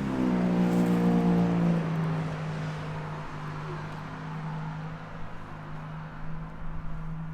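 Motor vehicle engine running with a steady hum that slowly fades.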